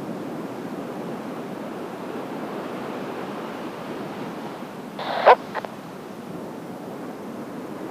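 Steady wash of surf and wind on the shoreline. About five seconds in comes one short, sharp, loud sound, then a fainter one just after.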